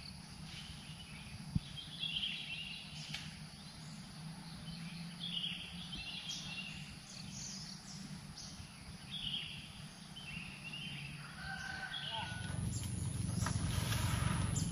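Scattered short bird calls over a low, steady outdoor rumble. The rumble grows louder about twelve seconds in.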